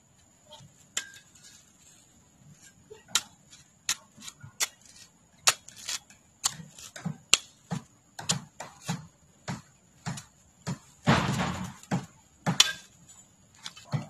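A long-handled tool jabbed again and again into garden soil: dull thuds, each with a sharp click, about two a second from a few seconds in. There is a longer scraping rustle about three-quarters of the way through.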